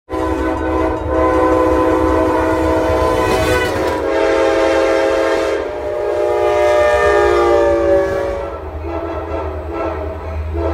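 Passenger train locomotive horns sounding long multi-tone chords, with the chord changing to a different horn about five and a half seconds in. The horns stop about eight and a half seconds in, leaving the low rumble of the train on the rails.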